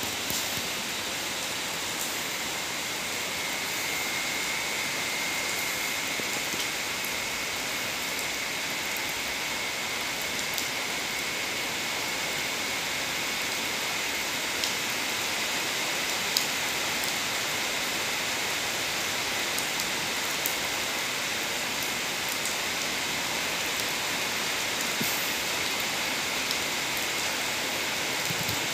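Steady rain falling on wet paving and puddles, with scattered single drop hits standing out. A faint, steady high tone sits underneath from about two seconds in.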